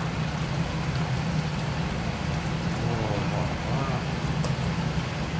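Goat udder deep-frying in a pot of bubbling oil: a steady sizzle with scattered light crackles over a steady low hum.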